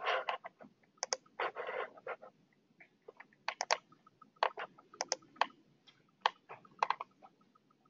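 Computer mouse and keyboard clicks, sharp single clicks and quick pairs at an irregular pace.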